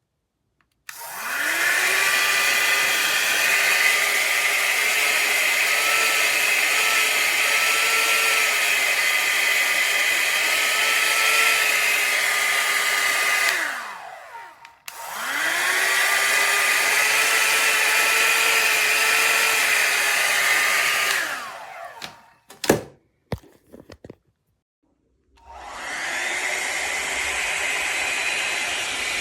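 Beautimeter 3-in-1 hot air styler (rotating blow-dryer brush) running with a steady rush of air and a wavering motor whine, winding down to a stop, starting again and winding down a second time, then a few clicks and it runs again, a little quieter, near the end. The styler is one its owner says has started malfunctioning.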